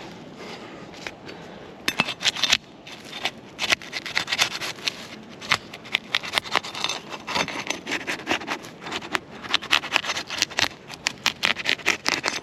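Hand tools scraping and prying at old asphalt roof shingles to free one for removal: a rapid, irregular series of scrapes and cracks that starts about two seconds in and keeps on.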